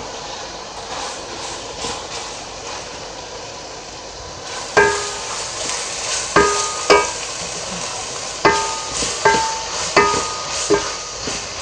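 Capsicum, carrot and onion sizzling in oil in a pan, a steady hiss. From about five seconds in, a spatula knocks against the pan a dozen or so times as the vegetables are stirred, each knock leaving a brief ring from the pan.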